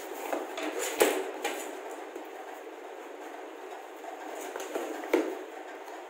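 Cardboard shipping box being handled and turned over on a table, with two sharp knocks, about a second in and about five seconds in, and a few lighter taps.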